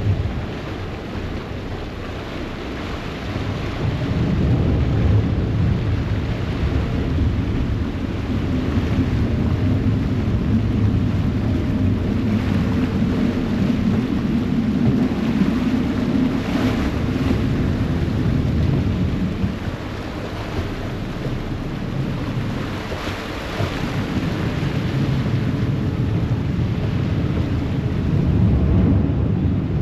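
Passenger ferry's engines rumbling steadily with its propeller wash churning the water at the stern, and wind on the microphone. The rumble eases briefly twice and builds again.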